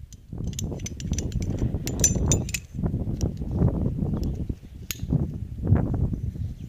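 Aluminium figure-8 descender and carabiner clinking and clicking as they are handled, most in the first two seconds or so, with a single click near the end. Low rustling and bumping from the handling run underneath.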